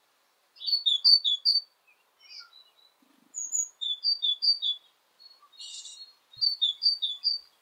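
A small songbird singing: three short phrases about two and a half seconds apart, each made of three quick two-note chirps, with a few fainter single chirps between them. A brief rustle comes just before the last phrase.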